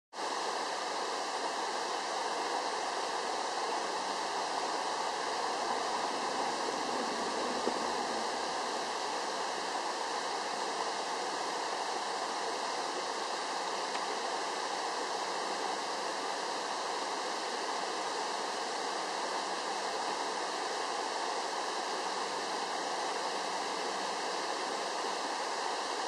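Shallow creek water running over rocks: a steady rushing noise that does not change.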